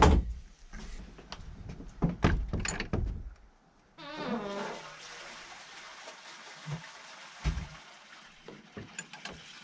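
A few knocks and clunks, then a flushing toilet: water rushing steadily from a little before halfway on, gurgling at first.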